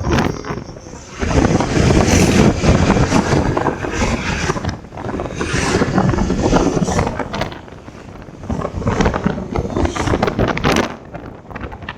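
Wind buffeting the microphone of a moving road vehicle, in uneven gusts over a low road rumble.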